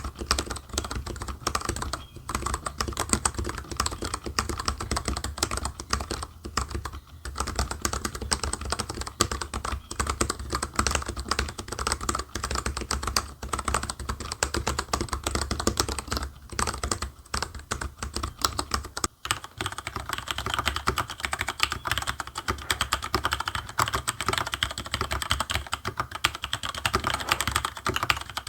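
Continuous typing on a TG3 Electronics mechanical keyboard with Cherry MX Black linear switches: a fast, steady clatter of keystrokes with a few brief pauses.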